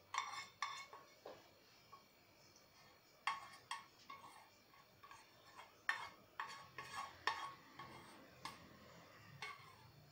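A spoon scraping and knocking against a small cooking pan as the tomato-paste sauce is scooped out and poured. It makes irregular clinks, each ringing briefly, loudest about three and six seconds in.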